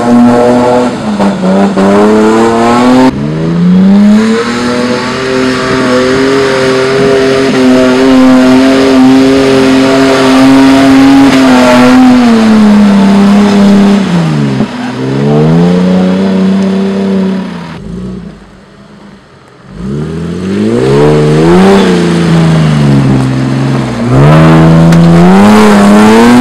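Toyota Land Cruiser 80-series engine and exhaust revving under load while off-roading, its pitch held for several seconds, then falling and rising again as it is throttled up and eased off. The sound drops briefly about two-thirds of the way through.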